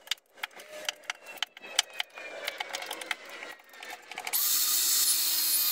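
A steel chisel tapping and scraping on hardwood, a run of irregular clicks and knocks. A little over four seconds in, a steady high hiss starts up.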